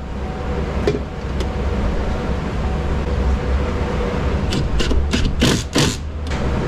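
Cordless power driver tightening the bolts that clamp the window glass to the regulator, in several short bursts between about four and a half and six seconds in, over a steady low rumble.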